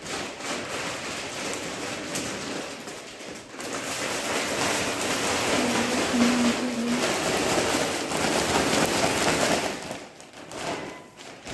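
Clear plastic bag crinkling and rustling as it is shaken and turned with dry ground spices inside, blending them into a sucuk seasoning. The rustle is steady and eases off near the end.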